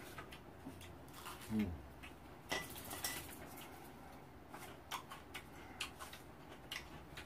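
Quiet eating sounds: scattered light clicks and taps of a spoon and metal chopsticks against a rice pot and bowls, one with a brief ring about two and a half seconds in, with a short murmur from one of the eaters about a second and a half in.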